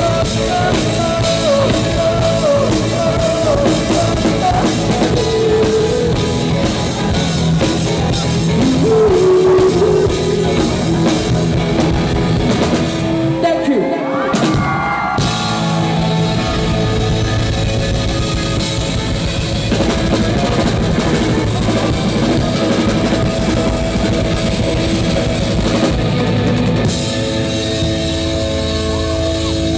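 Live rock band playing, with drum kit and electric guitar and some singing. The cymbals and high end drop out briefly about halfway through.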